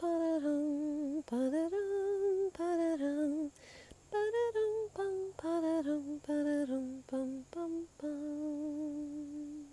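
A woman singing a wordless tune on syllables like "ya da dum, pum": a run of short notes, a brief pause partway through, then more notes ending on one long held note.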